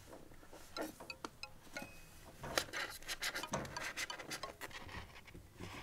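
Soft, tinkling, chime-like background music with many light clicks and rustles scattered through it, busiest in the middle.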